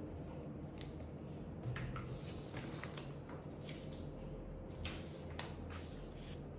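Sheets of paper being handled and swapped on a desk: faint rustling with a few light taps and knocks.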